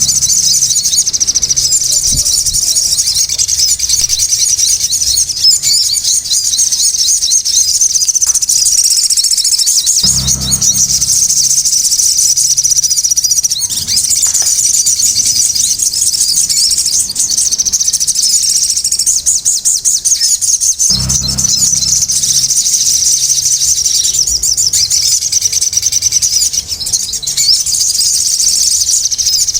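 Sogon birds singing noisily: a dense, unbroken stream of rapid high chirps and trills. A brief low thump about 10 s in and again about 21 s in.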